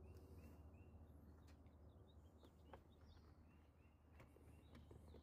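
Near silence, with several faint bird chirps in the background, mostly in the first second, and a few soft clicks as the airbag module is handled and pressed onto the steering wheel.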